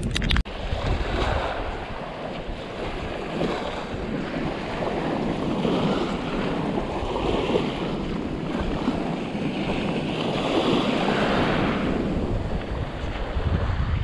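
Small waves washing onto a sandy beach in slow swells, with wind buffeting the microphone. A brief sharp knock comes right at the start.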